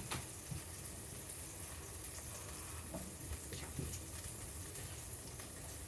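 Burger patty sizzling in a frying pan, a faint steady crackle with a few small pops.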